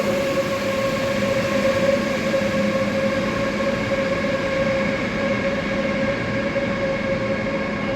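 Electric train with a steady, even whine over a constant rumbling noise.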